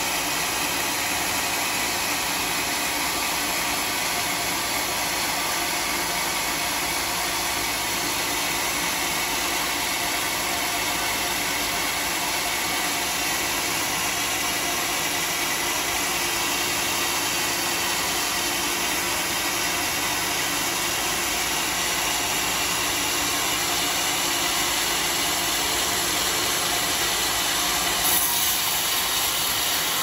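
Large log band sawmill running steadily, a constant machine hum and whine with the blade circulating. There is one short louder bump near the end.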